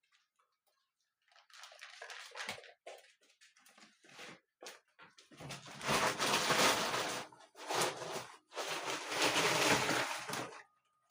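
Rustling and scuffling of a golden retriever puppy moving through a fabric agility tunnel: scattered short rustles, then two longer loud stretches of rustling, the second about three seconds long.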